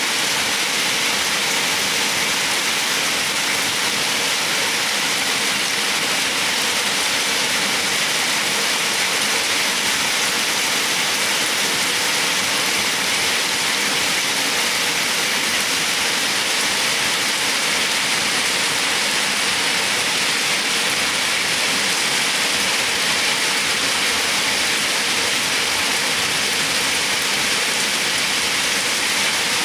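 Steady heavy rain falling, an even hiss with no pauses.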